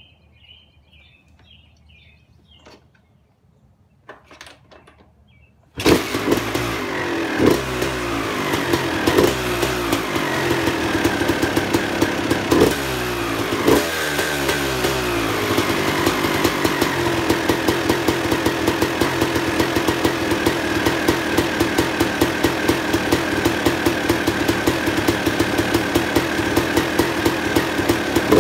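Suzuki RM250 two-stroke dirt bike engine on its full stock exhaust pipe and silencer, firing up suddenly about six seconds in. It is given several quick blips of the throttle, then settles into a steady running idle.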